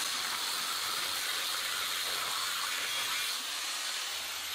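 Angle grinder cutting through the steel tube of an old bicycle bottom bracket shell: a steady hissing grind. Near the end the disc comes off the work and the grinder's high whine falls steadily as it spins down.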